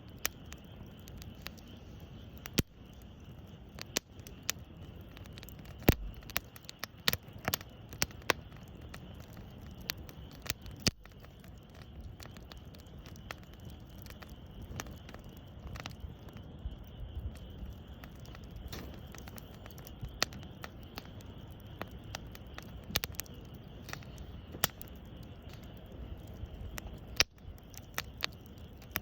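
Wood campfire crackling, with sharp pops at irregular intervals over a low steady rumble of the burning fire.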